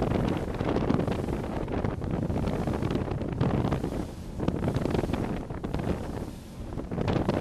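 Wind buffeting the microphone aboard a power catamaran running at speed, over the rush of water and spray thrown off its hull. The buffeting eases briefly about four seconds in and again near six and a half seconds.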